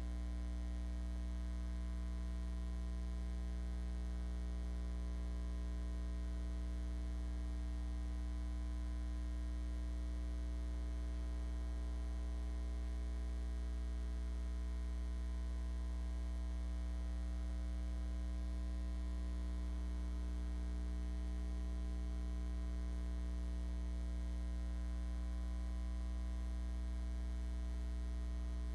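Steady low mains hum in the sound system, unchanging, with nothing else heard.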